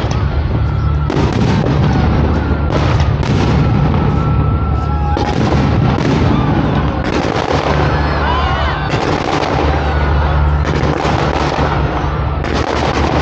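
Aerial fireworks bursting with repeated bangs and crackles over loud music with a heavy bass line.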